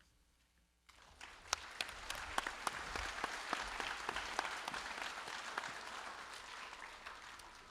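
Audience applause, starting about a second in, peaking and then slowly fading.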